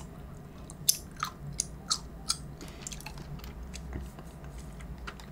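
A person chewing a mouthful of coconut rice smoothie, the rice grains in it being chewed, with short wet mouth clicks about three a second at first, then sparser and fainter.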